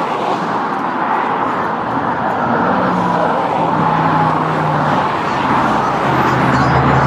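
Motor vehicles running and passing, with a steady rush of noise and an engine hum that comes in about two and a half seconds in and again near the end.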